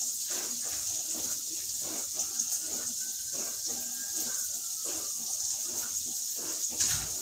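Bacon, onion and bell pepper sizzling in a frying pan: a steady high hiss, with a knock near the end.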